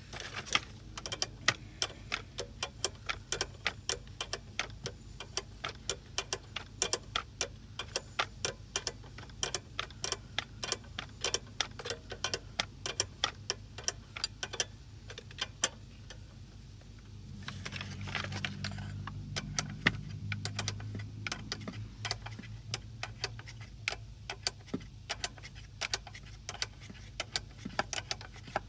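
Irregular metallic clicking and clinking of hand tools working on a car, several clicks a second, over a steady low hum that grows louder for a few seconds about two-thirds of the way in.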